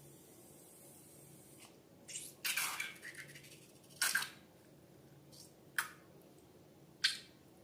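Wet, sticky slime being squished and handled, giving about five short sharp squelches and pops spaced a second or two apart, one with a slide down in pitch.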